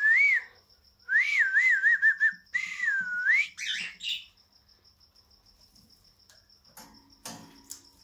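A person whistling a wavering, warbling call in three short phrases, the feeding whistle that tells the guinea pigs food is coming. A few brief higher chirps follow just after.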